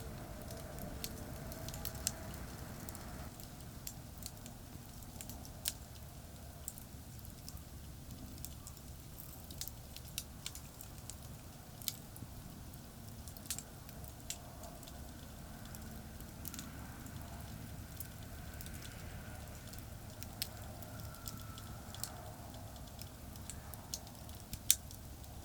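Campfire crackling with scattered sharp pops, one louder pop near the end, over a steady low rumble of traffic on a nearby expressway.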